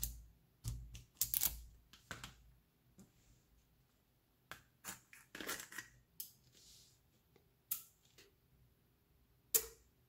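Small neodymium magnetic balls clicking and clacking as a tower section built from them is handled and set in place, with a sheet of paper scraping and rustling against them. The sounds come as scattered sharp clicks and short scrapes, with a longer scraping stretch about halfway through and a sharp click near the end.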